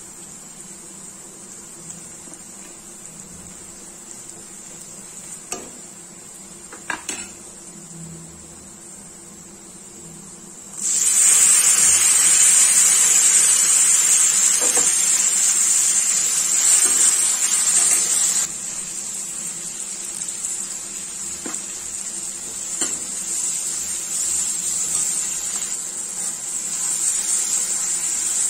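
Onions frying gently in oil in a metal kadai, with a few clinks of a steel spoon. About eleven seconds in, chopped tomatoes go into the hot oil and a loud sizzle starts suddenly. It eases after about seven seconds and keeps sizzling more softly as the mixture is stirred, the spoon scraping the pan now and then.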